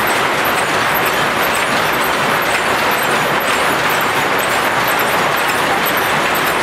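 Rows of old mechanical straw-mat weaving looms running together: a loud, steady mechanical din with faint rapid ticking in the high end.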